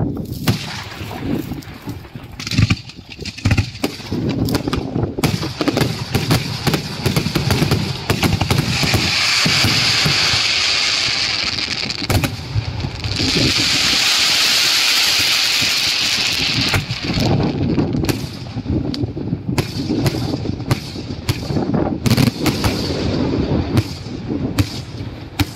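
Daytime aerial fireworks going off in a rapid, irregular string of sharp bangs and reports. Twice, about nine seconds in and again from about thirteen to seventeen seconds, a steady high rushing noise swells up under the bangs.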